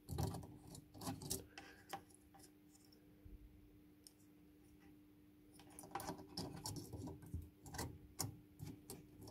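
Small plastic clicks and scrapes of a car headlamp's bulb holder and its wired connector being handled and pulled by fingers, in short bursts with a quieter stretch in the middle.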